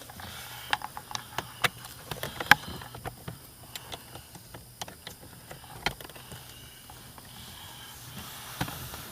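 Scattered small clicks and knocks from hands and tools working wiring and a ground screw under a car's dashboard, over a faint steady low hum.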